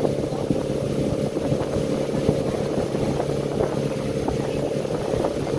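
Water taxi's inboard engine running at a steady cruising speed, a constant hum, with water rushing and slapping against the moving hull.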